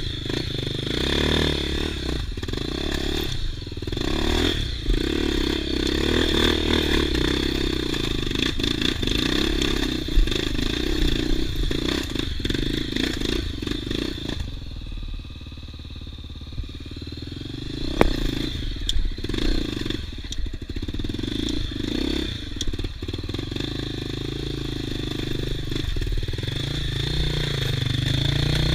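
Honda XR250 Tornado's single-cylinder four-stroke engine running while the dirt bike is ridden off-road, the pitch rising and falling with the throttle. About halfway through it eases off to near idle for a couple of seconds, then pulls again, with a sharp knock just after.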